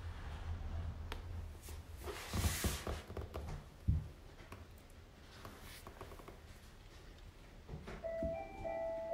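Light clicks and rustles from a small kitten's paws and claws moving on a wooden floor, with a soft thump about four seconds in. A simple tune of held notes starts about a second before the end.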